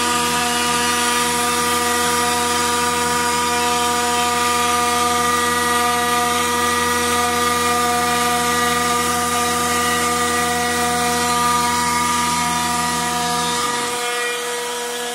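Trim router spindle of a homemade CNC machine running with a steady pitched whine while its bit engraves lettering into an aluminium plate. About 14 s in the low hum drops away and it gets slightly quieter.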